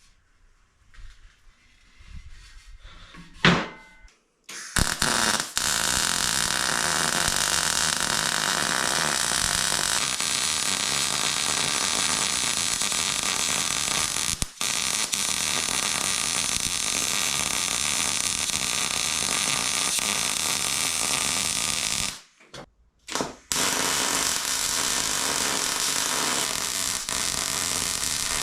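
A single metallic knock, then a welding arc starting about four and a half seconds in: a steady, loud crackling hiss that stops briefly near the end and starts again as the weld bead continues on the steel shelf frame.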